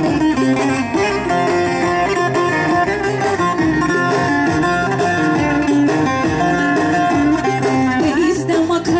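Bağlama playing a horon dance tune over the PA loudspeakers.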